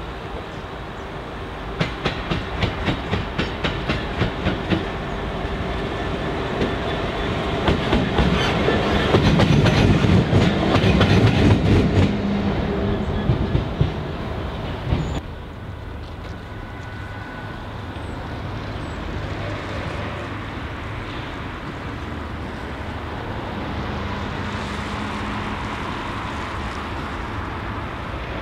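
A Class 66 diesel locomotive and its train pass close by at slow speed. The wheels click rhythmically, about three times a second, over rail joints and pointwork, and the engine's low rumble is loudest about ten seconds in. About halfway through it cuts off suddenly, leaving a quieter, steady diesel rumble.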